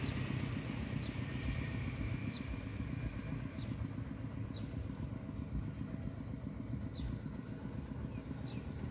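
Steady low rumble of a distant engine, slowly fading, with short high falling bird chirps every second or so.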